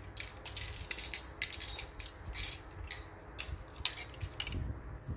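Fishing rods being handled on a cloth: soft, irregular rustling and scraping, with a few light clicks, as the rods are shifted and slid against one another.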